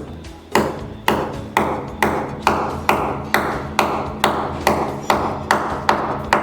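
Hammer striking the nail of a wall hook, driving it into the wall: a steady series of about fourteen sharp metallic taps, roughly two a second, each ringing briefly.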